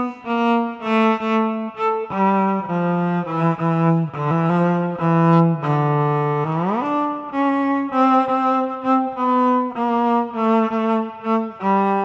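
Yamaha SVC-210 silent electric cello bowed, playing a melody of separate sustained notes, with a slide up in pitch about six and a half seconds in.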